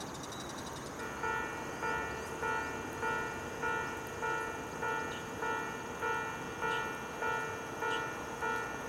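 Railway level-crossing warning bell, starting about a second in and sounding a repeated electronic ding roughly every 0.6 seconds. It signals a train approaching.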